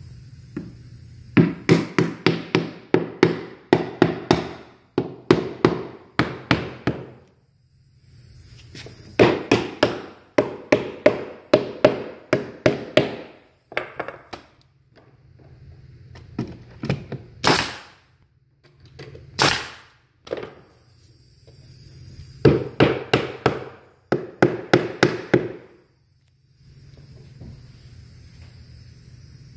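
Pneumatic nail gun firing nails into hardwood stair treads and trim, in three quick runs of sharp, slightly ringing shots about three a second. Two short hisses of air come between the second and third runs.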